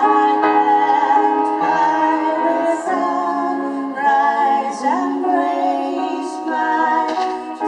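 Music: a woman singing held notes with vibrato over an accompaniment.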